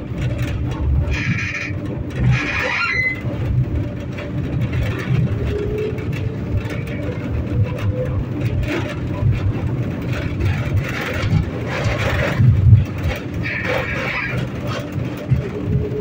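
A 71-911E "City Star" tram running, heard from inside the car: a steady low rumble of the running gear with a few short hissy bursts and a faint whine that glides in pitch now and then.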